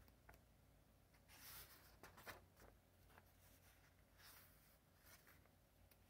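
Faint rustle of sketchbook paper pages being turned by hand: a few soft swishes over near silence.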